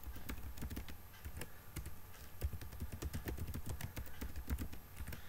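Computer keyboard typing: a fast, irregular run of key clicks as a password is entered.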